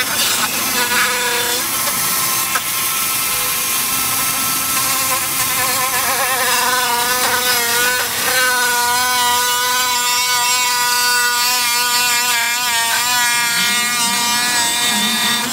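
Dremel 4000 variable-speed rotary tool with a cut-off wheel cutting through a plastic bumper lip: a steady high whine that wavers in pitch, with a brief dip about eight seconds in.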